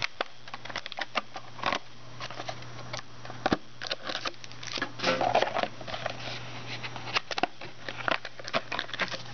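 Trading card packs being pulled out of their box and packaging by hand: scattered clicks, taps and rustles of cardboard and foil, over a steady low hum.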